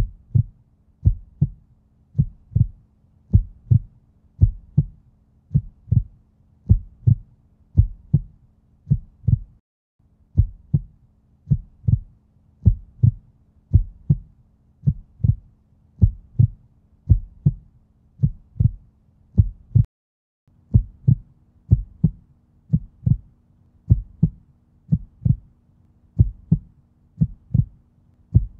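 Looped heartbeat sound effect: paired low thumps repeat steadily over a faint low drone. It cuts out for a moment twice, and after the second break the drone comes back a little higher.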